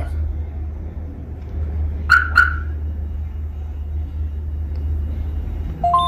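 Compustar car alarm giving two quick chirps about two seconds in, confirming an unlock and disarm sent from the phone app. Right at the end the Compustar two-way remote starts beeping. A steady low rumble sits underneath.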